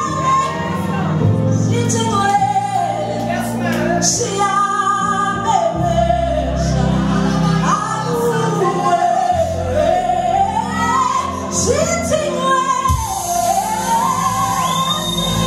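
A woman singing a gospel song as lead into a handheld microphone through a PA, with long held notes and sliding vocal runs over steady low accompaniment.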